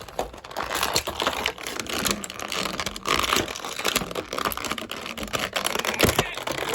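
Plastic and cardboard toy packaging being handled: a dense, irregular run of small clicks and crinkles.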